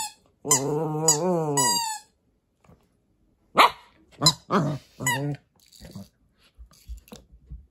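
Papillon–Corgi mix puppy growling in play, one long wavering growl with high squeaks at its start and end, then four short sharp barks about a second apart, followed by faint scuffling clicks.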